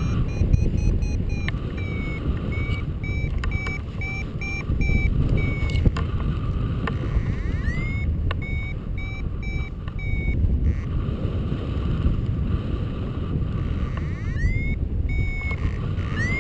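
Wind rushing over the microphone in flight, with a paragliding variometer beeping in runs of short, rapid pips at one pitch, several runs opening with a quick upward glide: the vario signalling that the glider is climbing.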